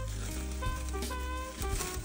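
Background jazz music with horns playing a melody over a bass line.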